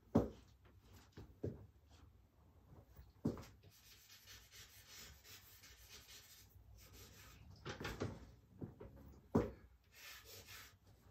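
Charcoal scratching and rubbing on drawing paper clipped to a wooden easel, with several sharp, dull knocks along the way, the loudest just after the start and near the end.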